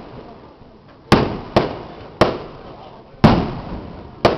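Aerial fireworks bursting: five sharp bangs at uneven intervals, the first about a second in, each trailing off in a fading echo.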